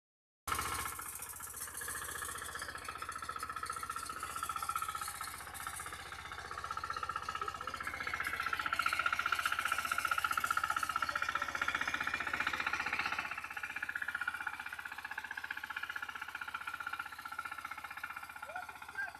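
Walk-behind power weeder's small engine running steadily, its rotary tines churning dry soil, with a fast, even pulse. It cuts in abruptly about half a second in and is loudest around the middle.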